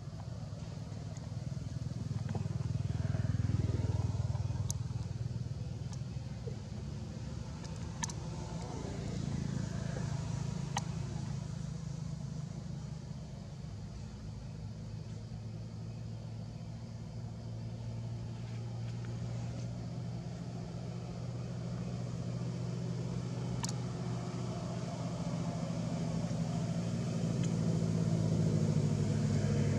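Low, steady engine rumble of motor vehicles that swells and fades a few times, with a few faint sharp clicks.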